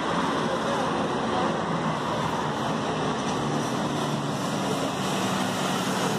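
Street traffic with cars passing, then a Mercedes-Benz OF-1722M city bus pulling in close, its diesel engine humming under steady tyre and road noise.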